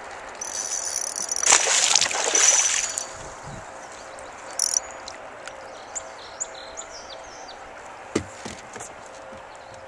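Water splashing and sloshing loudly beside a small boat for a couple of seconds, then a few light knocks, like wood or plastic tapping against the hull.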